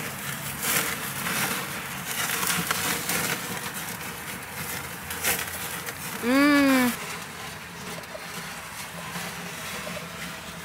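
A woman's short hummed "mmm" of enjoyment while eating, rising then falling, about six seconds in, over steady outdoor background noise with faint scattered clicks.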